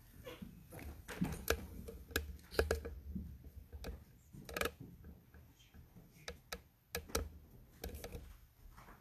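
Handling noise: scattered small clicks and knocks over an uneven low rumble.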